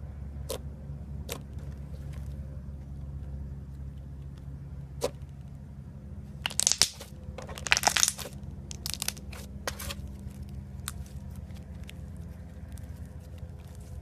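Crunchy slime being squeezed and pressed, crackling and crunching: a few single sharp clicks at first, then dense bursts of crackles around the middle, the loudest part, thinning to faint scattered crackles.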